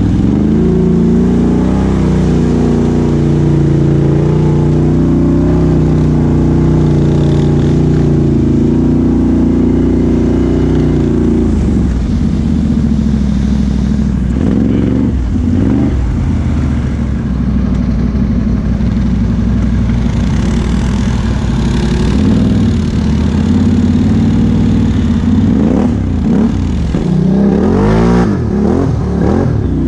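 Can-Am Outlander XMR 1000 ATV's V-twin engine with an aftermarket Big Gun exhaust, heard from its own handlebars. It holds a steady throttle for about the first ten seconds, then changes pitch, and revs up and down repeatedly near the end.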